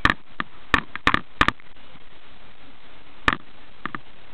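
A quick irregular run of sharp clicks and knocks, crowded into the first second and a half, then a single one a little after three seconds and a close pair near the end.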